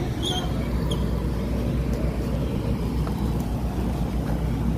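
Steady low engine drone of a docked car ferry and the port around it, with a few faint clicks.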